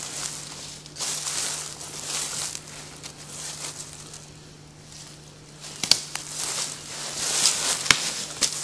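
Footsteps crunching and rustling through dry leaves and brush, uneven, with a lull in the middle and a couple of sharp cracks in the second half.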